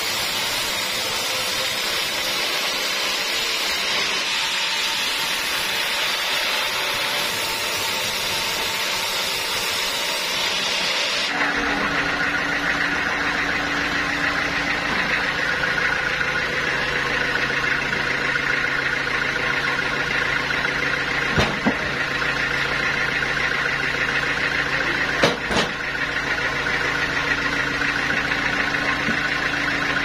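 A sawmill band saw cuts through a large hardwood log with a loud, steady hiss. About eleven seconds in, the cutting sound stops abruptly and the mill keeps running with a steady mechanical hum. Two sharp knocks come later as the log is handled on the carriage.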